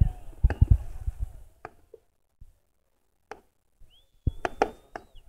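Fireworks shells bursting in the sky: scattered sharp bangs, a few in the first two seconds, then a quick run of bangs near the end. A high steady whistle sounds alongside that last run.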